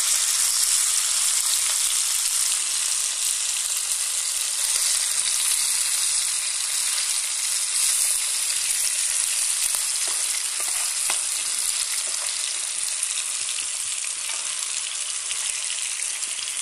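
Fish steaks shallow-frying in hot oil in a pan: a steady, dense sizzle with occasional faint pops, easing slightly toward the end.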